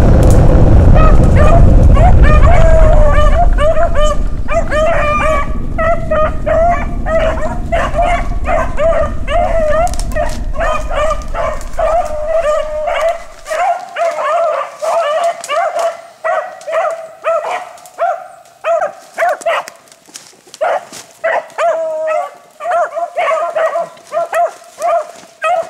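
Beagles baying on a rabbit's scent track: a steady run of short, high, repeated yelping calls from several hounds. A heavy low rumble is the loudest sound for the first half and stops abruptly about halfway.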